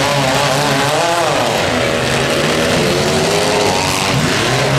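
Engines of several demolition-derby economy compact cars revving hard as they push against each other, the pitch rising and falling with the throttle.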